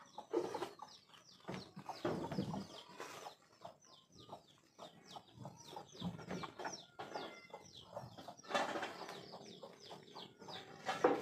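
Many short, high, falling bird chirps, thickest through the middle, over the rustling and knocking of a plastic tarp being handled and fixed up under a tin roof.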